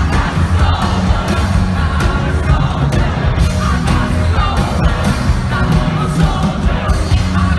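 Live rock band playing loudly with singing, heavy bass and drums, recorded on a phone from within the arena crowd.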